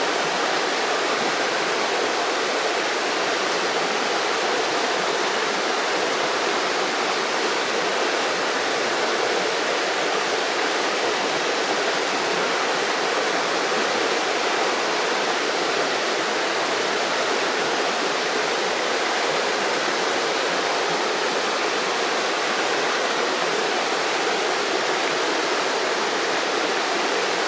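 River water rushing and gurgling over stones, a steady, unbroken flow.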